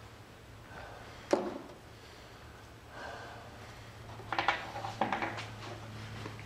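A sharp knock about a second in, then a run of light clicks and clatter a little past four seconds, as things are handled, over a steady low hum.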